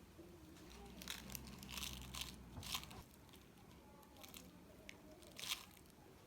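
Short crinkling, crunching handling sounds: a quick run of them in the first half, then a few single crackles.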